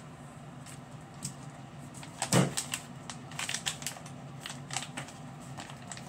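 A single thump about two seconds in, then a run of crinkling and clicking as a 24K gold face-mask packet is handled.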